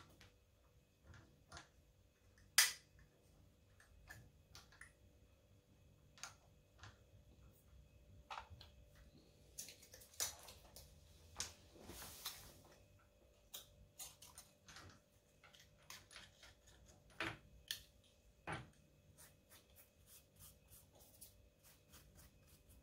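Faint steady hum from a small milling machine, with scattered sharp clicks and ticks, the loudest about two and a half seconds in, and a brief hiss about ten to twelve seconds in.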